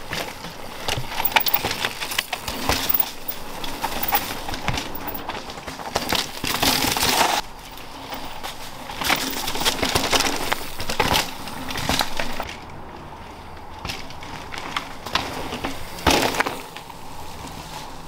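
Giant Glory downhill mountain bike ridden down a rocky dirt trail: tyres crunching over dirt and stones, with frequent sharp clattering knocks as the bike hits rough ground, loudest in a few passing surges.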